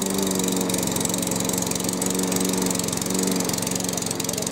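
Hyundai 139cc OHV four-stroke petrol lawnmower engine running steadily at a constant speed, freshly started from cold with the electric start.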